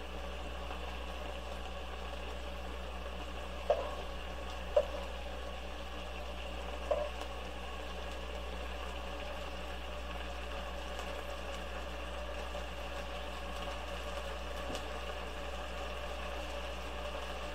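Seasoned chicken juices and fat bubbling and sizzling steadily in a nonstick pot over a steady hum, with three short knocks of the stirring spoon against the pot a few seconds in.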